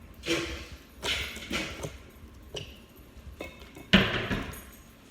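Slime being squished and worked by hand: a handful of separate short wet squishes, with a sharper, louder one about four seconds in.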